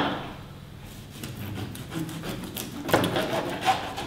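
Knife sawing through the flesh and centre bone of a brill to cut off a steak, scraping on the cutting board, with a sharper knock about three seconds in.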